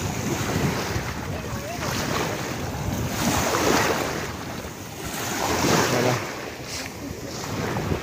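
Sea waves washing in, swelling about three seconds in and again near six seconds, with wind buffeting the microphone.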